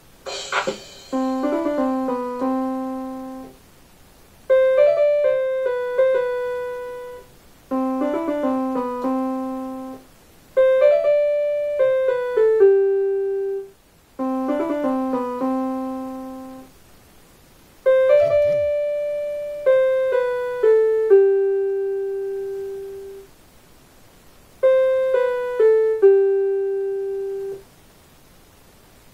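Piano playing about seven short melodic phrases of a few quick notes each, every phrase ending on a held lower note that fades, with a pause of about a second between phrases.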